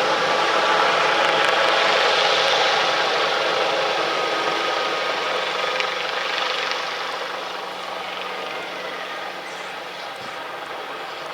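Irish Air Corps helicopter running, its turbine and rotors making a steady, loud, droning noise that grows quieter from about seven seconds in.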